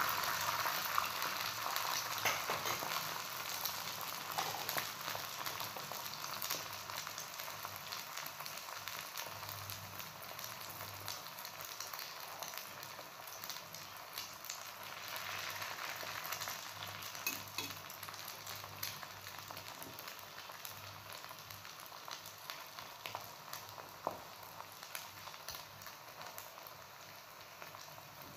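Beaten egg frying with chopped vegetables on a hot tawa in oil and ghee, a steady sizzle with small crackles. It dies down gradually.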